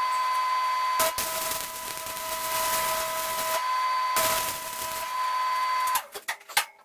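Stick welding on galvanized steel pipe: the arc crackles and hisses steadily as a heavy weld is run joining a fitting to the pipe, over a steady high whine. The arc breaks off briefly around the middle and strikes again, then stops about six seconds in, followed by a few light clicks.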